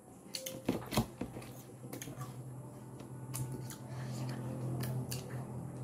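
Eating at a table: scattered small clicks of a fork on a plate and crisp bites into wax apples (bell fruit), with a low steady hum coming up about two seconds in.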